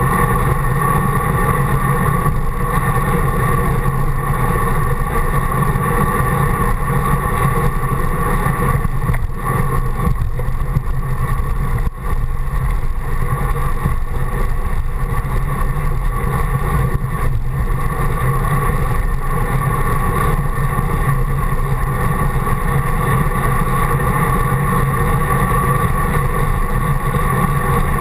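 Steady, loud wind and road rumble on a handlebar-mounted GoPro while riding a road bike at speed, dipping briefly twice near the middle.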